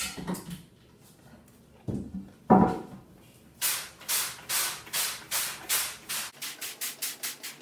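A trigger spray bottle squirting liquid in a run of short hissing sprays, starting about halfway and getting quicker toward the end. Before it, a couple of knocks as the screen frame is handled and turned around, the louder one about two and a half seconds in.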